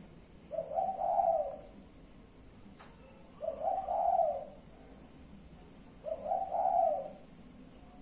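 Caged spotted dove (tekukur) cooing: three coo phrases, each about a second long, repeated roughly every two and a half seconds.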